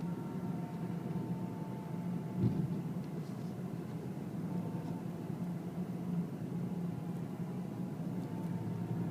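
BMW car running: a steady low hum with a faint, wavering high whine above it, and a single thump about two and a half seconds in.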